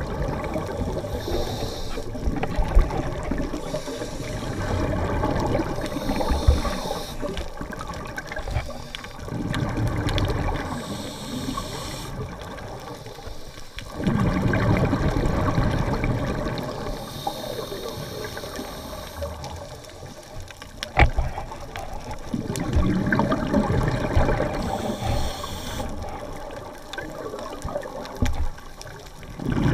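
Scuba diver breathing through a regulator underwater. Each breath is a short hiss as air is drawn in, followed by a longer burst of bubbling exhaust. About five breaths come in a slow cycle, several seconds apart.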